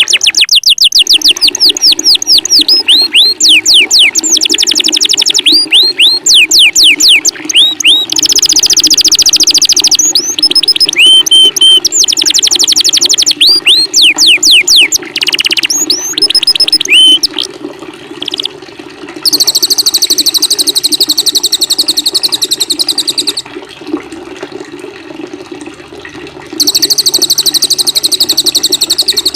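Small songbirds singing loudly in fast runs of high, sharply falling whistled notes, giving way about two-thirds in to a dense, buzzy high trill that breaks off for a few seconds and resumes near the end. A steady water sound runs underneath.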